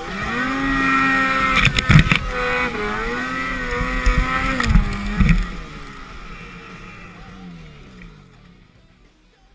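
Snowmobile engine revving hard while the sled ploughs through deep powder, with a few sharp thumps about two seconds in and again around five seconds. After that the engine winds down, falling in pitch, and the sound fades away as the sled stops against a tree.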